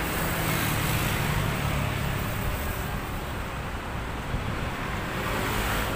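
City street traffic noise: a steady rush of passing vehicles, with a stronger low rumble in the first two seconds or so.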